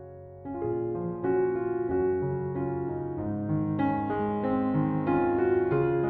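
Background piano music, slow and gentle, with single notes and chords; it swells louder about half a second in.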